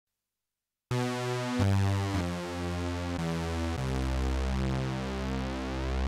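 Arturia OB-Xa V software synthesizer, an emulation of the Oberheim OB-Xa polyphonic synth, starting about a second in and playing a short phrase of five held notes or chords, each running straight into the next, over a deep bass.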